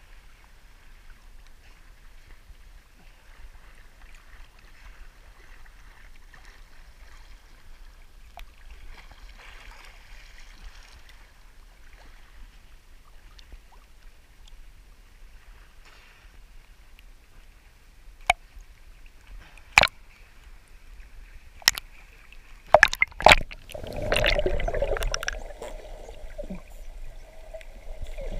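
Seawater lapping and sloshing faintly against a waterproof action camera held at the surface. In the last ten seconds come a run of sharp knocks and splashes, then a loud rush of water as the camera goes under, leaving a steady hum heard underwater.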